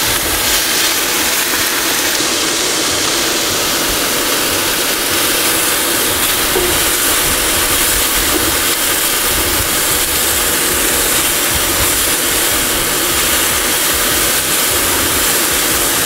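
Diced onion and frozen mixed vegetables (peas, corn, carrot) sizzling steadily in a hot camp-oven lid used as a frying pan on an induction cooker, frying off their moisture.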